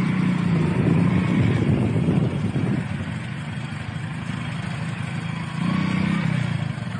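Motorcycle engines running at low speed. The sound is loudest for the first two seconds, then settles lower, with a brief rise about six seconds in.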